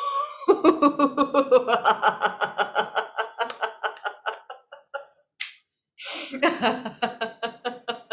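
A woman's hearty laughter-yoga laugh following a pretend sneeze: a long run of rapid, rhythmic 'ha-ha' pulses that fades off. After a short pause, a breath in starts a second run of laughter near the end.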